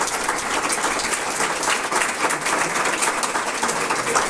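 Audience applauding: many hands clapping in a dense, steady patter at the close of a talk.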